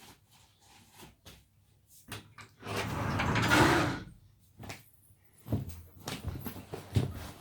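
Wardrobe door being handled: a few light knocks and clicks, then the door sliding along for a bit over a second, followed by several sharp thumps.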